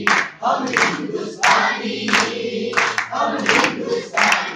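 A group of people singing a song together, with hand-clapping in a steady rhythm keeping time.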